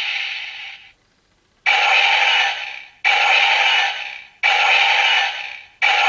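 A DX Kyurenoh toy playing a looping electronic sound effect: a noisy burst that starts sharply and fades over about a second, repeated about every one and a half seconds, while the Rashinban Kyutama lights up.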